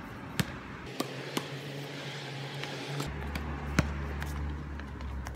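A basketball bouncing on an outdoor court: a few separate sharp thumps at uneven intervals, the loudest about four seconds in, over a steady low background rumble.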